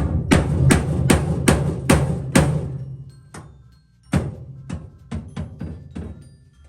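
Hammer blows driving at the pin that holds the fuse box through the cab firewall: a run of sharp strikes about two and a half a second, a pause, then a second run of strikes.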